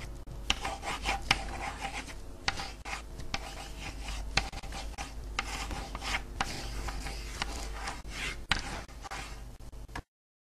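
A pen scratching across paper as it draws lines, with dry rubbing broken by frequent sharp ticks. It cuts off suddenly near the end.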